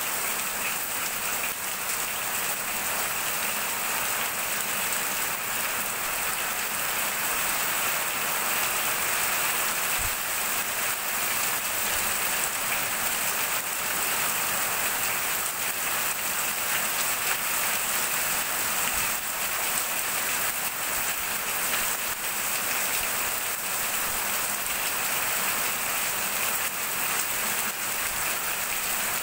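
Heavy rain falling steadily on a roof, with water running off its edge in streams: an even, unbroken hiss.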